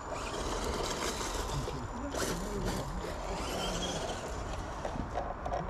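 Flatgekko Class 2 RC rock crawler crawling over rocks, its electric motor and geared drivetrain whirring with a rapid, zipper-like rasp.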